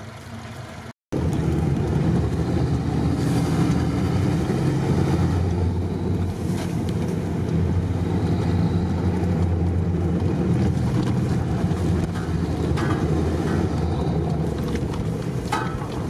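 Steady engine drone and tyre noise heard from inside an off-road vehicle's cabin as it drives along a rutted dirt track, with a few light knocks and rattles.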